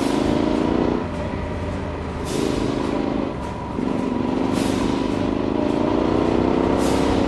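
Motorcycle engine accelerating. Its pitch climbs steadily, then drops at each upshift, three times, over a steady low rumble of wind and road.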